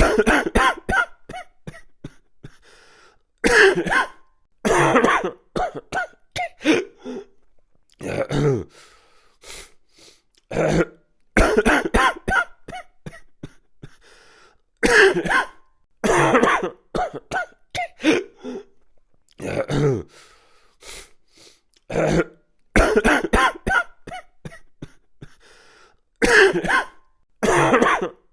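A person coughing and clearing their throat in repeated fits, short harsh bursts grouped together every few seconds with quiet gaps between.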